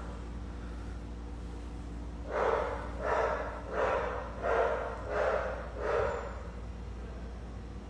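A person breathing hard in quick, even breaths, about six of them less than a second apart, over a low steady hum; the breathing of someone worn out.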